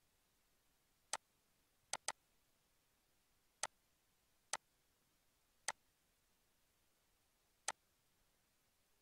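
Seven sharp computer mouse clicks over near silence, including a quick double-click about two seconds in.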